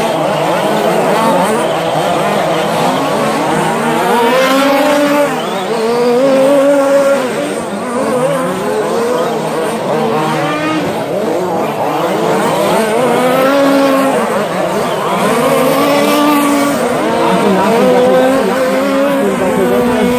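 Radio-controlled short-course race trucks running laps, their motors' pitch rising and falling over and over as they speed up and slow down around the track.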